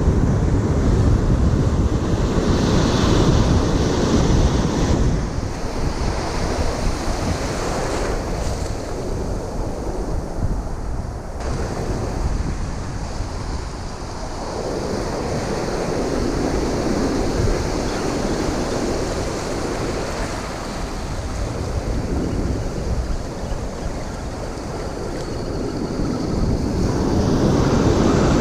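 Ocean surf breaking and washing up the beach, swelling and easing over several seconds, with wind buffeting the microphone.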